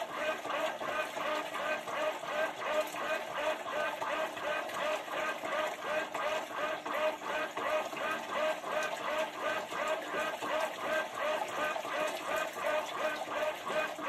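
Whirlpool Xpert System Smart Load top-load washer agitating a load in water, sped up in fast motion: a rapid, even churning rhythm of about four pitched strokes a second.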